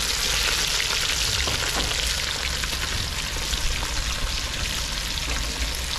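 Patwah fish frying in hot oil in a cast-iron karahi over a wood fire: the oil sizzles steadily, an even bubbling hiss.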